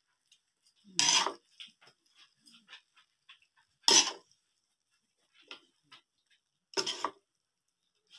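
Metal spoon scraping and scooping cooked vegetables in an aluminium pan: three short scrapes about three seconds apart, with light clinks in between.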